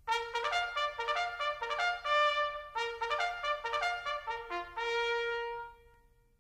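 Short intro jingle of quick brass notes in two runs, the second ending on a held note that fades out near the end.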